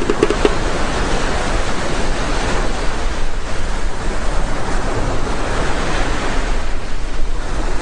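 Rough open sea: waves breaking and whitewater churning, a steady rushing noise.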